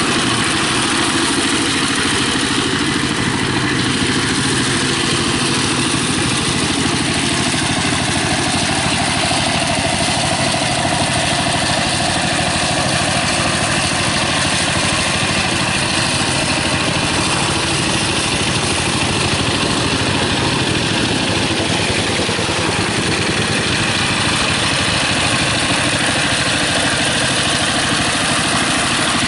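Walking tractor's single-cylinder diesel engine running steadily under load as the machine works through wet paddy-field mud.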